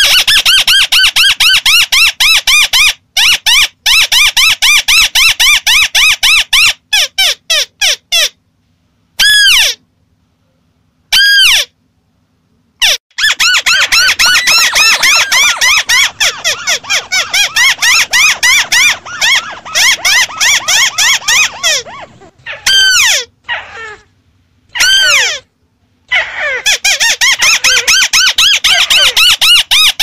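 Crakes calling in fast runs of repeated squeaky, arched notes, each run stopping abruptly with short silent gaps between runs: a looped lure-call recording used to draw paddy-field crakes in.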